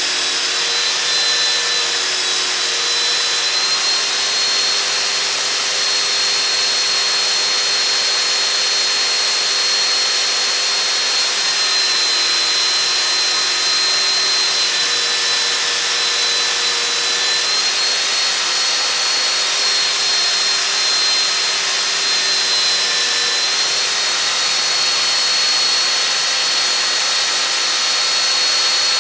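Handheld belt sander mounted upright in a stand, running steadily while a piece of wood is pressed against the moving belt and sanded. It is a continuous whine whose pitch shifts slightly now and then.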